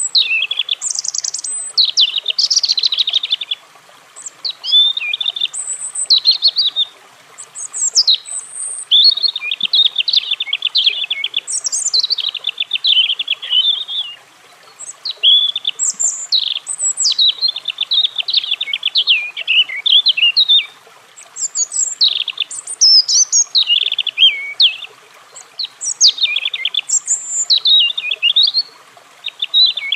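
European robin singing: a run of high, thin warbling phrases, each a few seconds long with short pauses between them, mixing fast trilled notes and quick sliding whistles.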